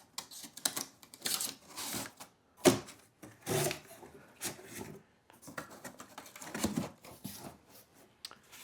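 Corrugated cardboard scraping and rustling in short irregular bursts as its tabs are pushed through slots and folded.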